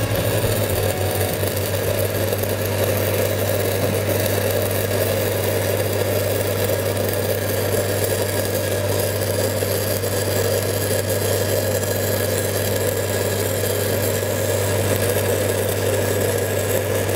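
Stick-welding arc burning steadily on steel pipe with an even crackle, over the steady hum of a Lincoln SA-200 engine-driven welding machine running.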